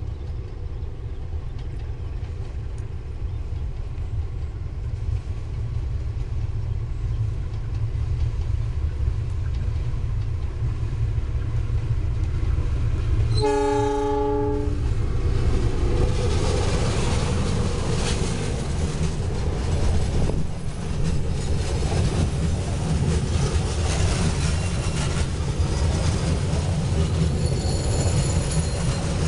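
Diesel locomotive hauling a passenger train, its engine rumble growing louder as it approaches; about halfway through it sounds one multi-tone horn blast lasting about a second. The coaches then pass close by, wheels clattering over the rail joints.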